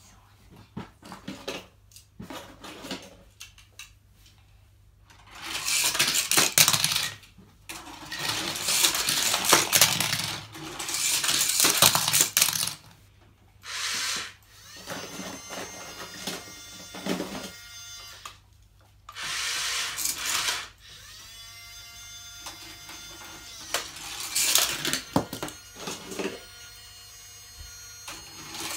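Plastic toy cars rolling and rattling down a segmented plastic track ramp, in several separate runs of a second or three each, with clattering stops in between. From about halfway through, a steady hum of several held pitches comes and goes alongside.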